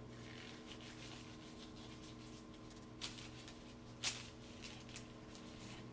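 Faint rustling of sterile gloves being pulled onto the hands, with two short sharp crackles about three and four seconds in, over a steady low hum.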